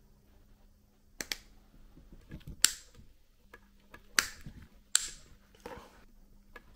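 Rotary leather hole-punch pliers punching through canvas: a sharp snap each time the handles are squeezed, about five times, roughly a second apart.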